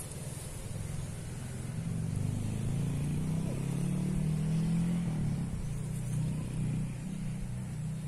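A motor vehicle engine passes, a low hum that grows from about two seconds in, is loudest midway, and fades toward the end.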